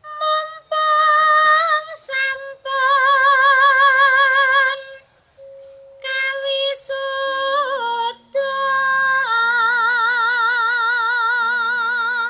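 A woman singing a Javanese macapat tembang in Dhandhanggula metre, in long held notes with a wide, wavering vibrato, broken by short breaths. From about halfway through, lower accompanying notes step downward beneath her voice.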